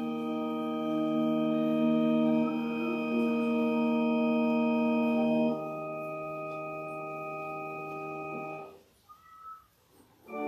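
Organ playing long held chords. The chord changes and softens about five and a half seconds in, then breaks off about nine seconds in, and after a short pause a new chord starts near the end.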